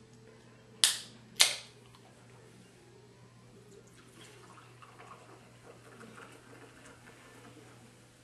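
Two sharp clicks half a second apart as a bottle is handled at its top, then a drink being poured faintly into a glass.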